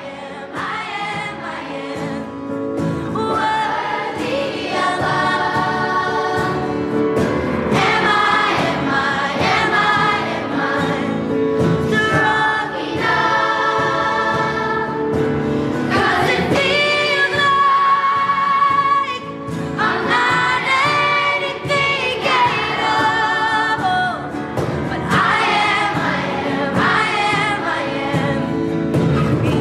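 A woman singing a pop song live into a microphone over instrumental backing, with some held notes sung with vibrato.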